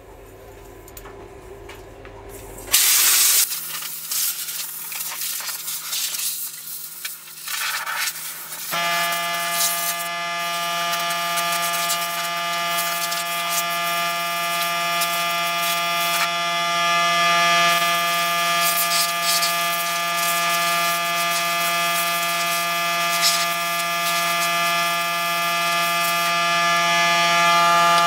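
Compressed air blasting and hissing from a blow gun, first in a loud burst about three seconds in. From about nine seconds in, an air compressor runs with a steady, noisy hum that grows a little louder, with more hissing bursts of air over it.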